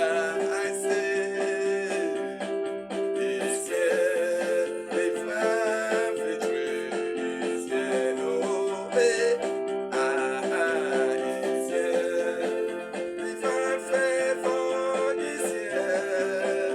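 Music: a song with sung vocals over sustained chords and plucked strings.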